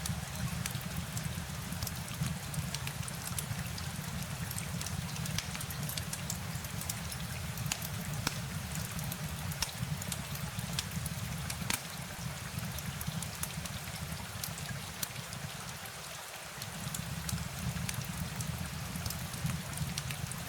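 Steady rain ambience: an even hiss of rain with many scattered sharp drop ticks over a low, steady rumble, dipping briefly about three-quarters of the way through.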